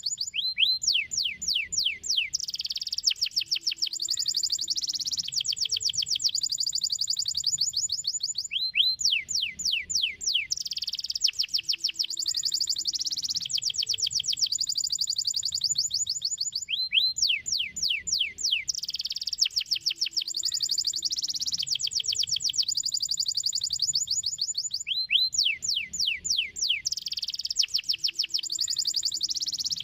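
Domestic canary singing: fast trills of quick downward-sweeping notes alternating with high, dense rolling passages, the same song phrase coming round again about every eight seconds.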